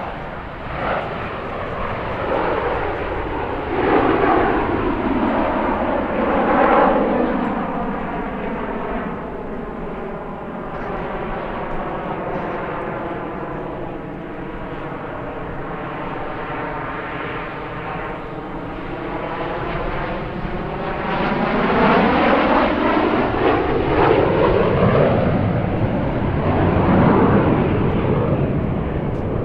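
Canadair CT-114 Tutor jets of the Snowbirds formation flying past, their turbojets swelling and fading. A sweeping, phasing whoosh runs through the sound as the jets pass overhead. It is loudest twice: a few seconds in, and again over the last third.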